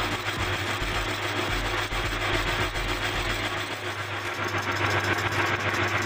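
Lathe running steadily with a low hum, its cutting tool boring out the inside of a front-load washing machine's damper tube.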